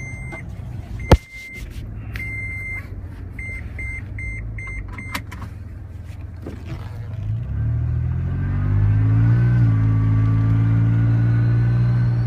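Seatbelt warning chime beeping inside the cab of a supercharged Toyota FJ Cruiser for about the first five seconds, the beeps quickening near the end, with a single sharp click about a second in. From about seven seconds the FJ's supercharged 4.0 V6 pulls under throttle, rising in pitch and then holding steady and louder, with a faint supercharger whine riding over it.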